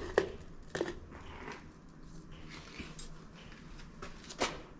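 Handling of small parts, most likely plastic wiring connectors and clips: a few sharp clicks and knocks, the loudest near the end, with light rustling between.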